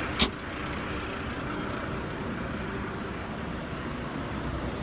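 A single sharp knock about a quarter of a second in, then a vehicle engine running steadily with a low rumble.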